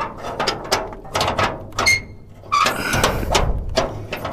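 A door or gate being unlatched and opened: a run of mechanical clicks and rattles, a short squeak about two seconds in, then a steadier rumble with more clatter.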